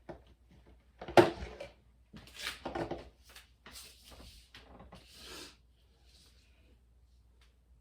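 A sharp knock about a second in, as of an object set down on a hard surface, followed by several short bouts of rustling and handling noise as hair-install supplies are picked up and moved.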